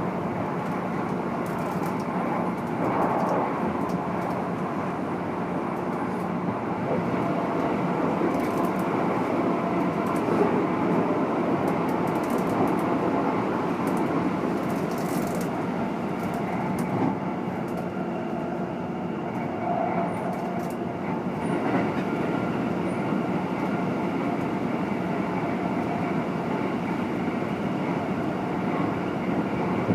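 Running noise heard inside a Keikyu N1000 stainless-steel electric car, Deha 1449: steady wheel and motor noise while under way, with a few faint steady tones and a few sharp clicks. This set's MB-5121-A traction motors, fed by a Toyo IGBT VVVF inverter, are noted for an unusually loud, abnormal running sound.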